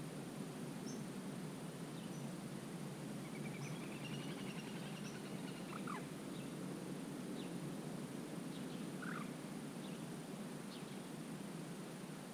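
Wetland ambience: a steady low background rush with faint, scattered bird calls, including a soft rapid trill about three seconds in and short downward calls around six and nine seconds.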